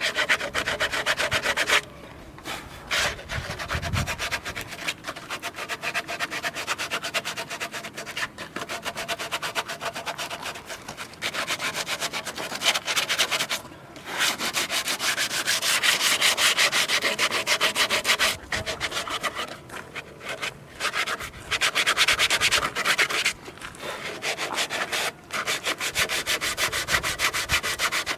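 Wood being sanded or rubbed by hand with rapid, rasping strokes, in stretches of a few seconds broken by short pauses.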